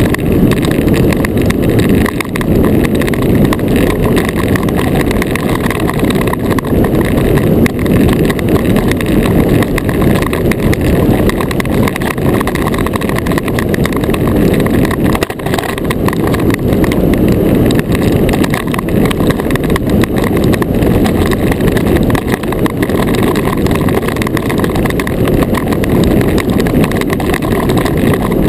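Iceboat sailing fast over black ice: the runner blades rumble and hiss on the ice while wind rushes over the on-board microphone. The result is a loud, steady rushing noise.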